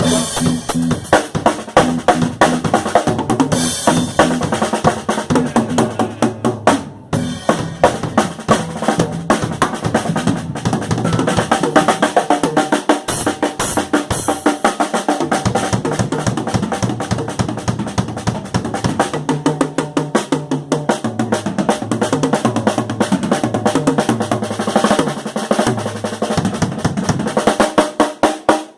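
Live band playing an instrumental stretch with no singing: a drum kit leads with busy snare and bass-drum hits and rolls, and an electric bass moves underneath. There is a very brief break about seven seconds in.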